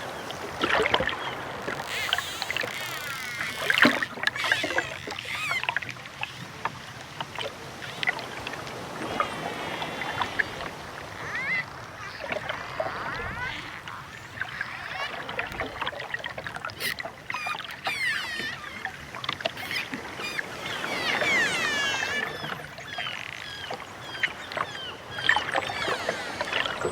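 Underwater recording of dolphins calling: many overlapping warbling whistles that sweep up and down in pitch, mixed with sharp clicks over a watery hiss.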